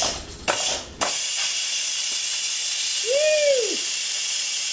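Electric pressure cooker's release valve venting steam in a loud, steady hiss that starts about a second in after a few short spurts: the pressure being quick-released at the end of cooking. A brief rising-and-falling hoot sounds over it about three seconds in.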